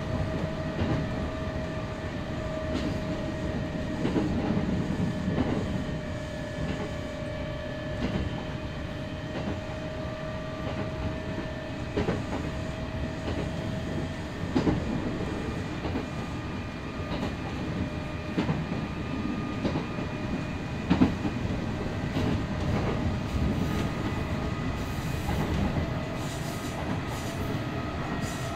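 Kintetsu 8000 series electric train running, heard from inside motor car Mo8230: a steady rumble with a thin motor whine from its field-phase-controlled traction motors, and wheels clicking over rail joints at uneven intervals, with one louder knock about three quarters of the way through.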